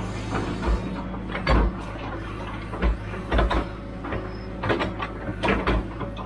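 Hitachi UH043 excavator's engine running steadily while the machine works, with repeated loud irregular metallic clanks and knocks from its tracks and bucket.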